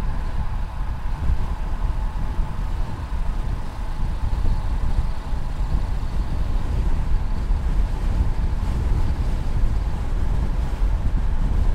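Wind rushing and buffeting over a chest-mounted action camera's microphone on a road bike descending at about 50–60 km/h: a loud, steady low rumble that flutters constantly.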